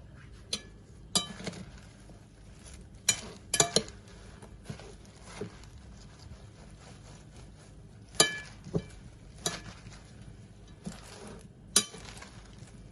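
Kitchen utensils clinking and knocking against bowls and dishes in about a dozen irregular strikes, a few of them ringing briefly.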